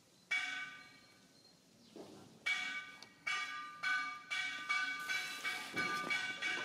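A bell struck once and left to ring out, then struck over and over from about two and a half seconds in, at roughly two to three strikes a second.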